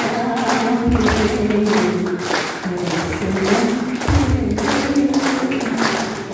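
A woman singing a slow melody into a microphone, holding long notes, with the audience clapping along in a steady rhythm.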